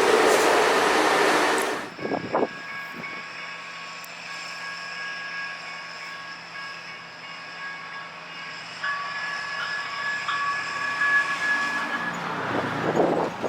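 Light rail train passing loudly with a rushing noise that falls away about two seconds in. Then a quieter stretch with a faint steady electric whine of several held tones, which grows a little stronger later on. A brief louder rush comes near the end.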